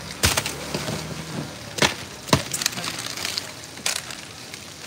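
Crushed ice being tossed and scooped in a foam box: four sharp crunching knocks, one near the start, two close together about two seconds in, and one near the end.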